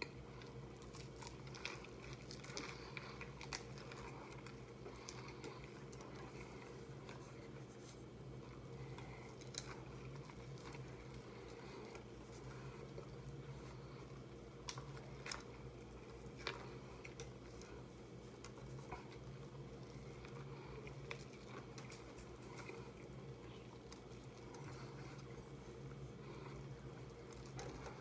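Chewing and squishing of a mouth crammed full of tacos, with scattered short sharp clicks, over a steady low hum.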